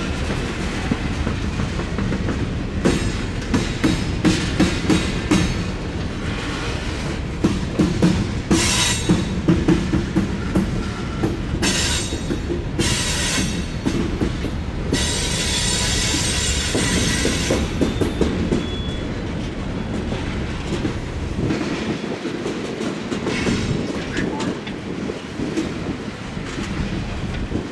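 Loaded freight cars rolling slowly past: a steady rumble of steel wheels on rail, with bursts of clacking as wheelsets cross rail joints. Several stretches of high-pitched wheel squeal come near the middle.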